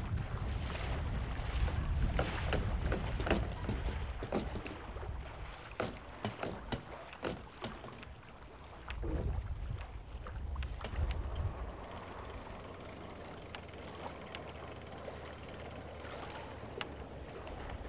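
Wind buffeting the microphone as a steady low rumble, with short splashes and slaps of water in the shallows, most frequent in the first half and thinning out after about eleven seconds.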